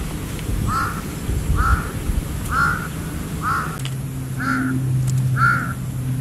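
A crow cawing six times, about once a second, with even spacing. A low steady hum comes in about four seconds in.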